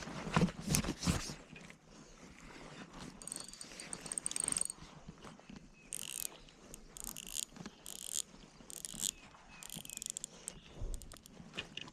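Fishing reel being cranked in short spurts, its gears and pickup clicking and whirring, after some clicks and knocks of handling about a second in.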